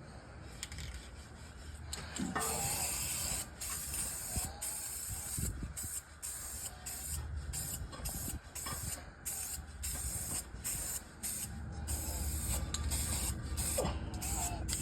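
Aerosol spray paint can spraying in many short bursts of hiss, stopping and starting again.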